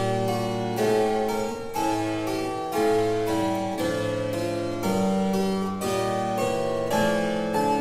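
Slow keyboard music, with plucked-sounding chords changing about once a second.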